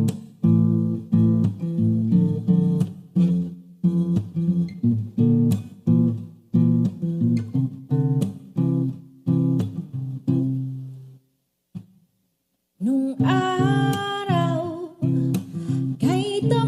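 Acoustic guitar strumming chords in an even rhythm, fading out about 11 seconds in. After a short silence the guitar starts again with a singing voice as a new song begins.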